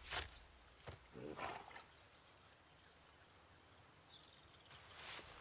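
A few footsteps crunching on dry leaf litter in the first two seconds, then quiet woodland with faint high tones.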